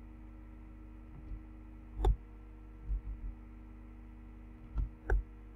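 A handful of clicks from the computer as text is copied and pasted, the sharpest about two seconds in and again near the end, over a steady electrical hum.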